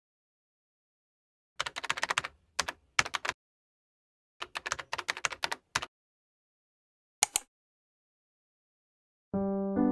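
Keyboard typing sound effect: three quick runs of key clicks, then a single keystroke about seven seconds in. Piano music begins just before the end.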